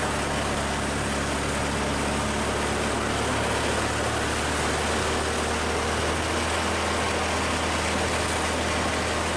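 An engine running steadily under a constant hiss, with a low, even hum and no change in speed.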